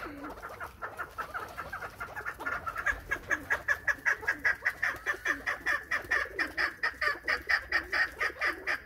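A flock of chukar partridges calling: a rapid, even run of clucking notes, about five a second, growing louder about three seconds in.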